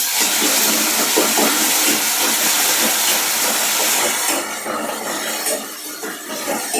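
Hot oil sizzling and crackling in a pan, loud at first and easing off about four seconds in.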